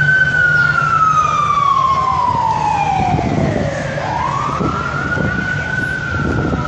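Fire engine siren sounding a slow wail. The pitch falls steadily for about four seconds, then rises quickly, holds high and starts to fall again. A low steady hum runs underneath.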